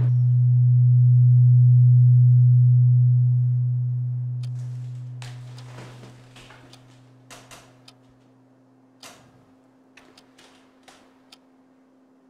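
A single low droning tone swells for the first two seconds or so, then slowly fades away. As it dies out, faint scattered clicks and taps of small objects being handled on a table are heard.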